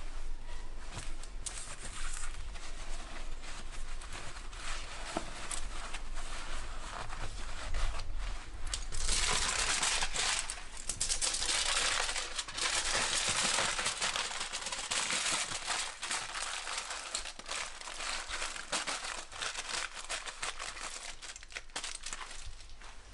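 Aluminium foil and paper towels crinkling as they are handled, then the foil sheet being folded up and crumpled, loudest for several seconds in the middle.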